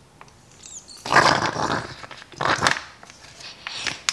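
Squelching and gurgling of puree and trapped air as the plunger of a Fill N Squeeze baby food pouch filler is pushed down, in two bursts: one about a second long starting about a second in, then a shorter one. Air is being caught in the pouch instead of food going in.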